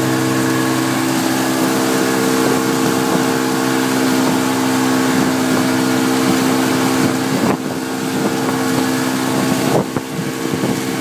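Motorboat engine running steadily at cruising speed, with heavy wind and water rush over it. The noise dips briefly twice near the end.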